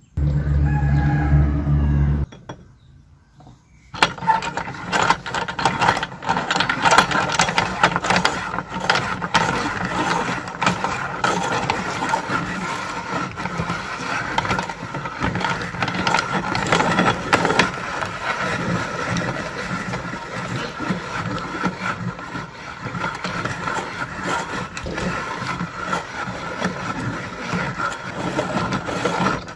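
Hand-cranked metal meat grinder turned steadily while grinding persimmon fruit: a continuous metallic rattling and squeaking of the crank and auger, beginning about four seconds in after a short pitched sound.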